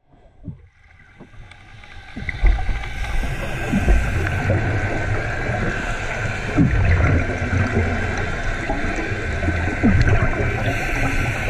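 Underwater noise in the sea: a continuous low rumble with gurgling, which comes up from faint to a steady level about two seconds in.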